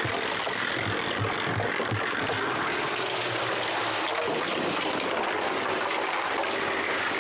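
Concrete being mixed: a steady, gritty rushing noise.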